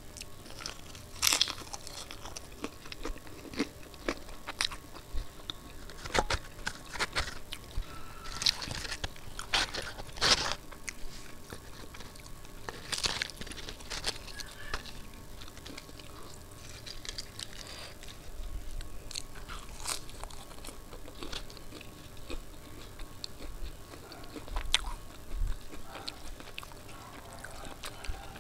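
Close-miked eating: crisp deep-fried puri being torn by hand and bitten, with irregular sharp crunches and chewing in between.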